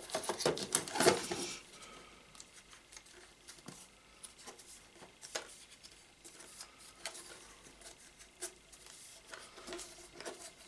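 Picture box frame being handled as its hardboard backing is fitted: a few clicks and taps in the first second and a half, then faint scattered ticks as the frame is lifted and turned over.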